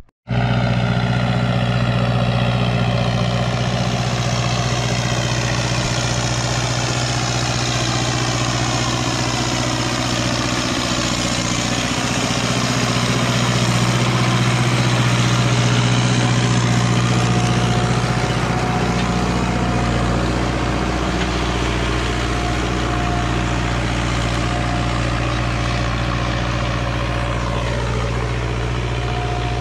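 Diesel engine of a Valtra BM110 tractor running steadily under load while pulling a disc harrow, with a slight swell in engine sound about halfway through.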